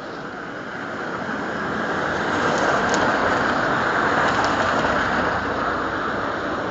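Traffic noise from a vehicle passing: a rushing sound that builds over about three seconds, eases a little, then starts to rise again near the end as another approaches.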